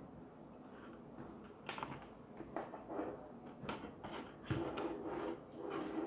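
Hands rubbing and tapping along a wall-mounted T5 LED tube light and its cord: a run of irregular soft scrapes and knocks, the loudest knock about four and a half seconds in.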